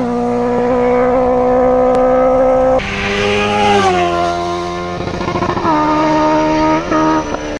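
Honda CBR650F's inline-four engine running at high revs as the sport bike is ridden hard. The pitch holds steady, then steps down about three seconds in and again near six seconds.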